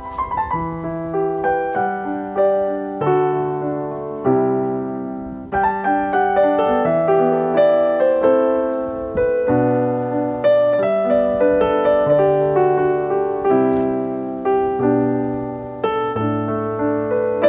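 Piano music: a steady, flowing run of notes and chords over a lower bass line.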